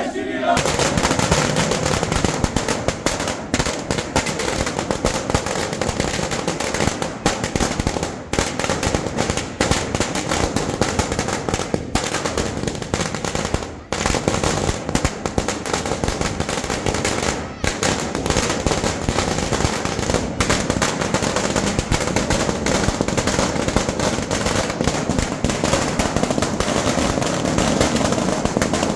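A long string of firecrackers on the road going off in a rapid, unbroken series of loud cracks.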